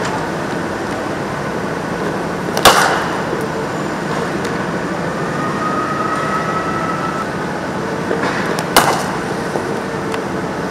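Cricket bat striking a cricket ball twice, two sharp cracks about six seconds apart, the first the louder, over steady background noise.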